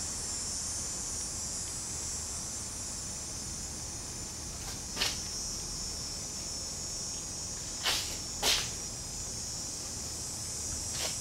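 A steady high-pitched hiss, with three short knocks: one about halfway through and two close together a few seconds later.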